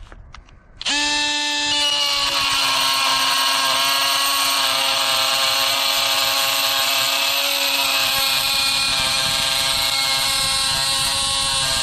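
Dewalt DCS356 brushless oscillating multi-tool with a titanium wood-or-metal blade cutting galvanized steel unistrut: a steady, high buzz that starts abruptly about a second in and holds an even pitch.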